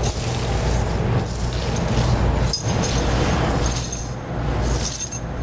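Steel tire chain links rattling and dragging across a concrete floor as the chain's cable is pulled around behind a car tire, over a steady low hum.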